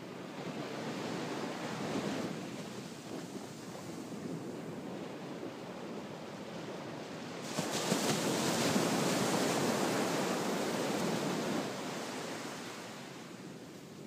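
Ocean surf breaking on a sand beach, a steady rush of water. About halfway through a bigger wave crashes and its wash runs loud for several seconds before fading near the end.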